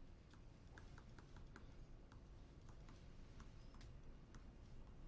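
Faint, irregular clicks and taps of a stylus on a pen-input screen as handwriting is written, several a second, over a steady low room noise.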